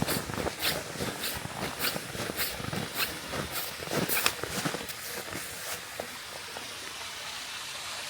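Footsteps of a hiker walking through snow at about two steps a second, stopping about six seconds in, over a steady hiss.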